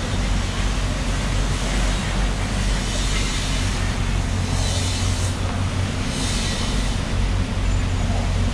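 Steady low machine hum, engine-like, over a constant background noise. About halfway through come two short hissing sounds.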